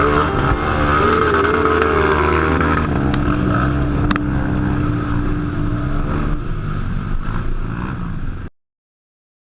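Off-road vehicle engine running and revving, its pitch wavering up and down, then cutting off abruptly near the end.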